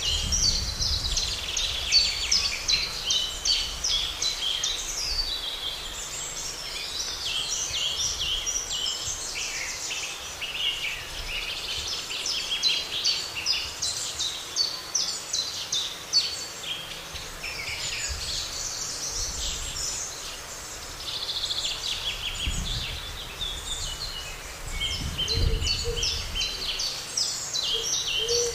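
Many songbirds singing at once, a dense overlapping chorus of quick chirps and trills, over a faint low rumble.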